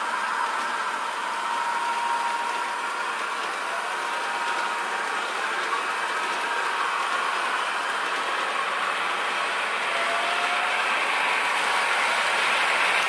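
HO-scale model trains running on the track: a steady rolling rattle of small wheels on rails and running gear, mixed with train sounds played by the ESU LokSound 5 sound decoders through the models' small speakers. Faint steady tones sound near the start, and a short higher tone comes about ten seconds in.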